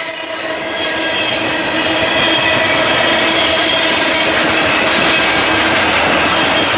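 Norfolk Southern intermodal freight train rolling past close by, its trailer-carrying flatcars making a continuous loud rumble and clatter of steel wheels on rail. Steady high squealing tones from the wheels ring over the top.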